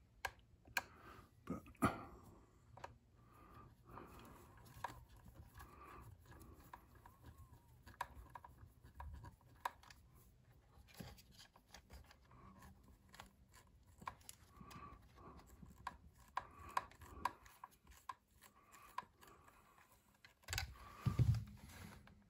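Faint clicks, scrapes and rubbing as hands work a hex driver and small screws into the plastic chassis of a radio-controlled truck. There is a louder knock and rattle near the end.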